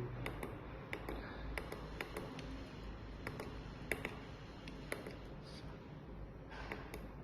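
Small irregular clicks of push buttons being pressed on a gate-opener control board while stepping through its menu.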